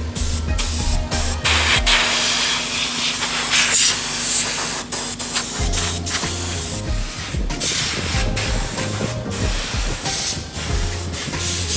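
Compressed air blasting from an air blow gun in a run of short and longer bursts, a loud hiss that keeps cutting off and restarting as the trigger is worked, blowing dust out of a mining rig.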